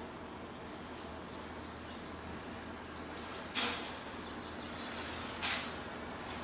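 Steady outdoor background noise, broken twice by a sharp slap about two seconds apart, a little past halfway and near the end, from a martial artist's movements on a wooden deck.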